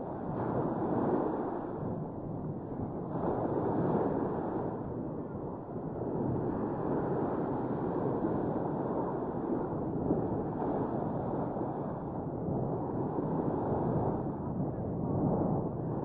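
Sea waves washing onto a sandy beach, a steady rush that swells and eases every few seconds.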